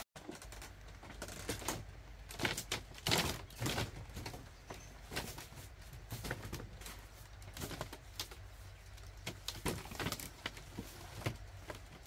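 Scattered soft knocks, creaks and cloth rustling as a person moves about and lies down on a woven mat over a split-bamboo floor.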